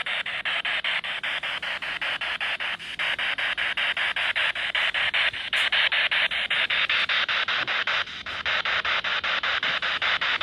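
Static hiss from a radio-sweep spirit box, chopped into short pulses several times a second by the sweep, with a few brief dropouts.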